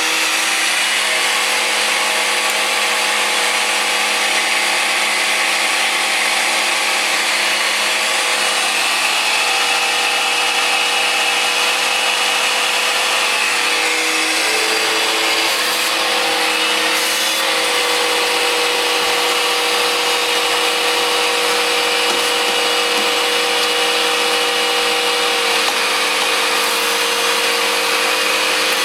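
Vacuum cleaner running steadily while cleaning out a pellet stove: a loud motor whine over a rush of air, its pitch shifting slightly a couple of times.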